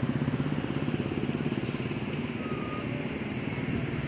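A motor vehicle's engine running, a rapid low pulsing that is a little stronger in the first second and then steady.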